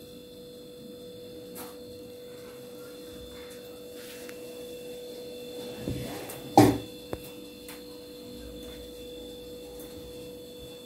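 Steady electrical hum. About six seconds in come two knocks, the second one sharp and the loudest sound here, then a faint click.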